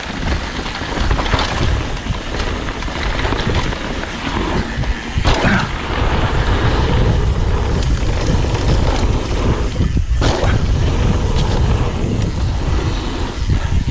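Wind buffeting the microphone of a mountain bike descending a trail, a steady low rumble, with tyres rolling over dirt and scattered knocks and clatter from the bike hitting bumps.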